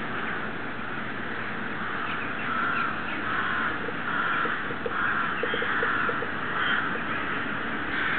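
A large flock of rooks calling in flight: a dense chorus of overlapping caws that grows louder a few seconds in.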